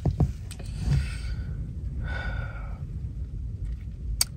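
A man breathing out heavily in two long sighs, over a steady low rumble, with one sharp click near the end.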